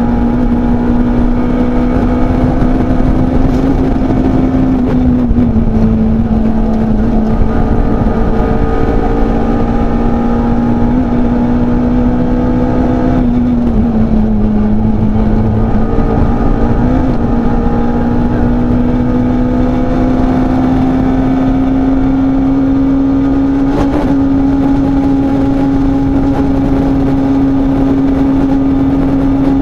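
Peugeot 106 Rallye's four-cylinder engine heard from inside the cabin, running hard on a rally stage. The engine note holds steady, dips slightly twice, then climbs slowly. A single short knock comes a little past two-thirds of the way through.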